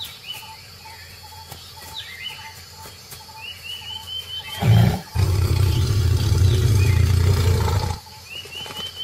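Birds chirping, then about halfway through a tiger gives a short loud growl followed by a long low growl of about three seconds: an aggressive warning as one tiger rejects the other's approach.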